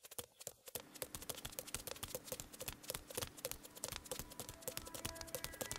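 Rapid, irregular clicking, many clicks a second, with a faint steady hum that comes in about a second in.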